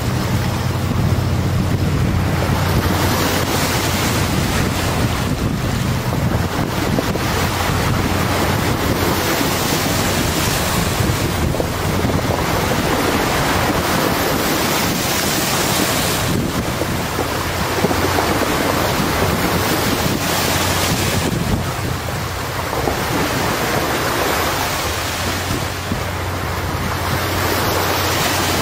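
Wind buffeting the microphone over a steady rush of water, with the low, steady engine hum of a passing high-speed passenger catamaran ferry; the hum fades about three-quarters of the way through.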